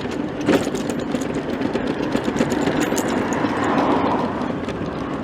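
Street traffic: a steady hum of car engines and tyres, swelling a little about three seconds in as a vehicle goes by.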